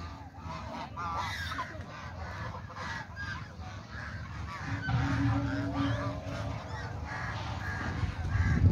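Domestic fowl calling with repeated short honking cries, some gliding up or down in pitch. A low rumble grows louder near the end.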